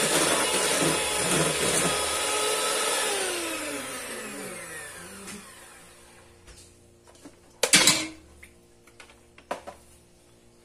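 Handheld electric mixer beating cake batter in a steel bowl, then switched off, its motor whine falling in pitch as it winds down over about two seconds. Later two sharp knocks, the first loud, as the mixer is handled and put down.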